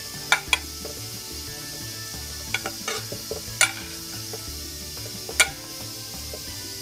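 Cut tomatillos and jalapeño pieces dropping from a plate into a plastic blender jar, about six sharp knocks as they land, the loudest about a third of a second and about five and a half seconds in. Background music plays underneath.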